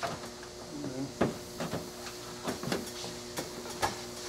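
Plastic front bumper cover of a Lexus IS being pushed and lined up onto the car's front end: a string of short clicks, taps and knocks, irregular and spaced about half a second apart, over a faint steady hum.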